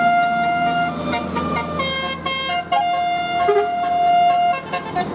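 Bus 'telolet' horn: a multi-tone musical air horn playing a short tune of held notes that change pitch in steps, with a long held note at the start and another long one through the middle.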